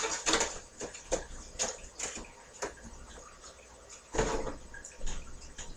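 Irregular clicks and knocks of small objects being handled and set down, with a louder clatter about four seconds in.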